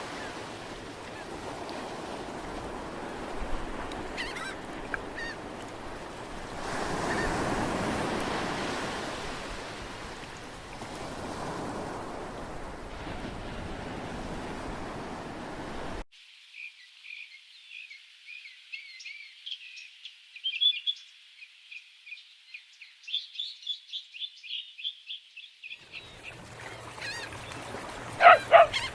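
Added sound effects: surf washing in swells with a few bird calls over it. About halfway through it cuts suddenly to thin, high bird chirping, and near the end louder animal calls start over the noise again.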